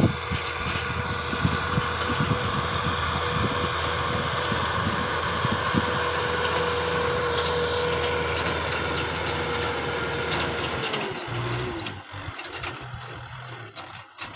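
Kubota M6040 tractor's four-cylinder diesel engine running steadily under load while pulling a disc plow through dry field soil. A steady high whine runs with it and dips and stops about eleven seconds in, and the sound is quieter and more uneven after that.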